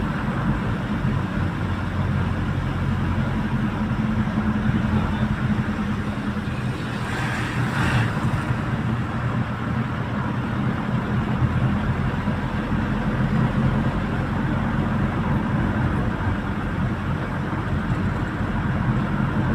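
Goods truck's engine running steadily while under way, a constant low hum with road noise, and a brief rushing swell about seven seconds in.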